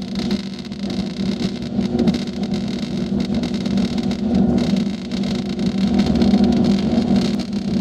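Wire-feed (MIG) welding arc crackling steadily as a bead is laid on the plow's wheel mount, over a steady low hum.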